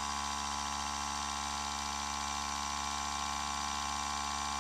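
Small portable air compressor running with a steady, even hum, feeding air through a coiled hose to a windshield-repair injector during a chip repair.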